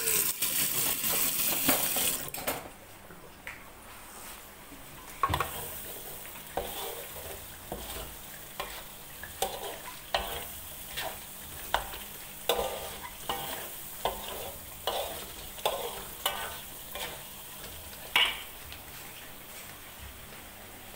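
A kitchen tap runs into a stainless-steel sink for the first couple of seconds, then stops. After that a spatula scrapes and stirs a steel wok of biryani spice paste frying in oil, about one stroke a second, over a light sizzle. The paste is being fried until the oil separates out of it.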